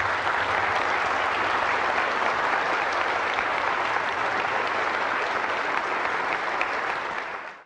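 Audience applauding steadily, then cut off abruptly just before the end.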